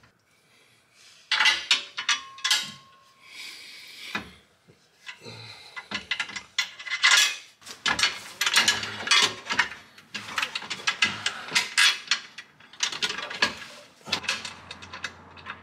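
Metal clinking and rattling as bolts and spacer shims are fitted by hand through an aluminum transfer case skid plate and started into the frame. Many short sharp clicks come close together, thickest in the second half.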